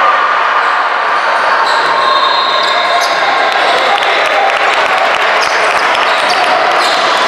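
Basketball game in a gym: a basketball bouncing on the court over steady crowd chatter that echoes in the hall.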